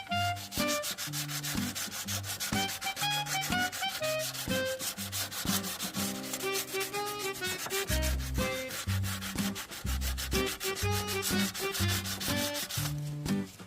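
Background music with a fast, even beat, a melody of short notes and a stepping bass line.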